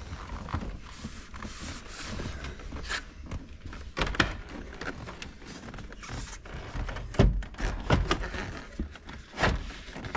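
Irregular knocks, thumps and rustling of a slip-over dash cover being pushed and settled into place over an old dashboard, with a few louder thumps in the second half.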